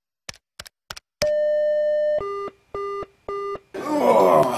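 A few sharp clicks, then an electronic beep held for about a second, followed by three shorter beeps at a lower pitch. Near the end the beeps give way to room noise with a voice.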